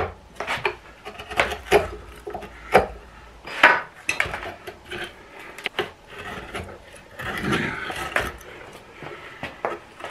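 Hand carving tool paring wood from inside the bowl of a spalted-wood kuksa blank, undercutting beneath the lip. An irregular run of short scraping cuts, roughly one a second, with a longer scrape about seven seconds in.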